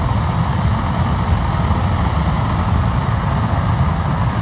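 Cyclone wood pellet burner burning at full rate with a compressor-fed blower forcing air through it: a loud, steady rumble and rush of flame and air, heaviest in the low end. The burner is at its high-output, blue-flame stage.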